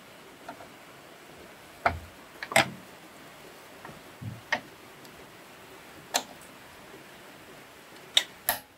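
Sharp metal clicks and taps at irregular intervals as a retaining clip is worked onto the drive shaft linkage of a Honda rear roller mower, with two quick clicks near the end as the clip goes in.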